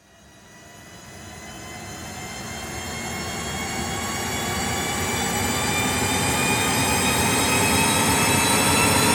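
Cinematic riser sound effect: a dense stack of tones over a rushing noise bed, fading in from silence and swelling steadily louder while the pitch slowly climbs, building tension toward a peak.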